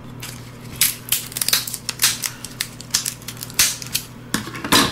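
Cooked crab shell being cracked and broken apart by hand: a run of irregular crackles and snaps.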